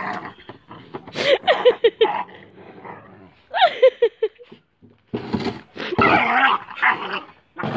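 American Staffordshire Terrier puppies growling in rough play, with two quick runs of short high yips, about a second in and again near the middle, and louder scrappy growling later on.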